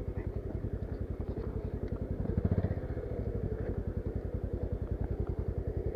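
Motorcycle engine running at low revs with a steady, rapid putter, swelling briefly about two and a half seconds in.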